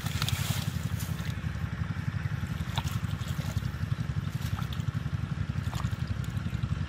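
Shallow muddy water sloshing and trickling as hands grope through it and grip a large catfish, with small scattered splashes over a steady low rumble.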